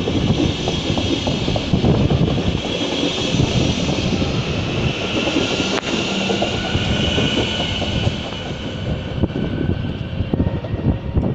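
Train running on the tracks close by: a loud, steady rumble of wheels on rails with rapid clatter and a hiss, easing slightly near the end.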